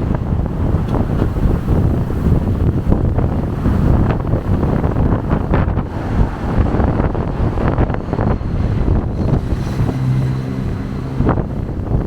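Strong wind buffeting a small camera's built-in microphone in gusts, a heavy uneven rumble. A low steady hum comes in briefly near the end.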